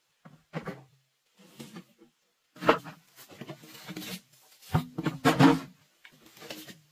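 Hollow bamboo poles knocking and scraping against one another as they are laid side by side to form a floor: a string of separate clunks, loudest about three and five seconds in.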